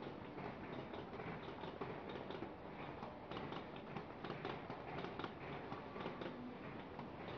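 Paper bag making machinery running: a dense mechanical clatter of quick, irregular clicks over a low rumble.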